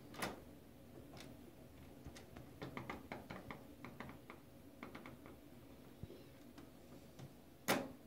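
Brass doorknob being turned and wiggled by hand, its latch and spindle giving a string of small clicks and rattles, with a sharp click just after the start, a quick run of clicks in the middle and the loudest click near the end.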